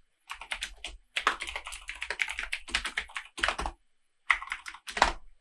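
Typing on a computer keyboard: quick runs of keystrokes broken by short pauses, with a few harder strokes near the end.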